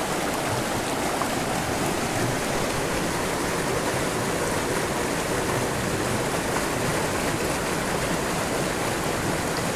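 Small rocky stream rushing steadily over stones and little cascades.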